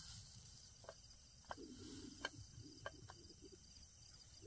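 Faint, steady chirping of crickets, with about five light clicks scattered through the middle.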